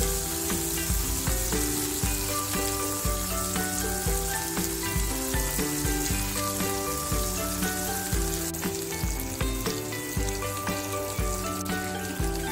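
Spiced, pre-boiled beef ribs sizzling in hot oil on a grill pan as they are laid in with tongs, under background music with a steady beat and a melody.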